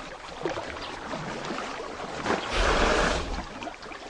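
Water sloshing as a hippopotamus surfaces, with one loud rushing noise lasting under a second about two and a half seconds in.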